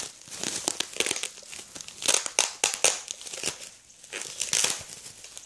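Plastic packaging wrap crinkling and crackling in irregular bursts as it is handled and pulled open, easing off briefly about four seconds in.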